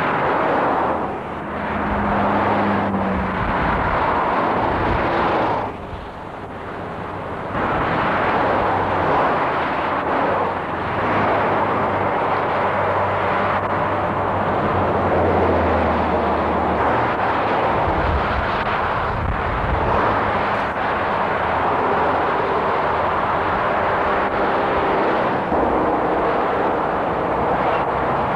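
Road traffic passing on a dual carriageway: a steady rush of tyre and engine noise from cars and lorries, with a brief lull about six seconds in.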